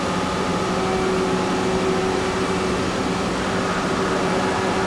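Mazak Nexus 510 II 5X five-axis vertical machining center running: a steady machine hum with a few constant tones over a noisy whir, as its axes move.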